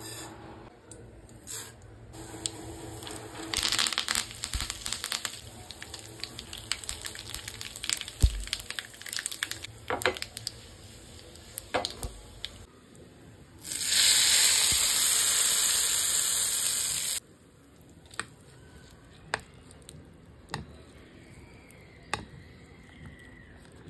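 A tadka of mustard seeds, urad dal, curry leaves and dried red chillies frying in hot oil, the mustard seeds crackling and popping in quick sharp pops. Then comes about three seconds of loud, steady hissing sizzle that stops abruptly, and a few soft spoon clicks near the end.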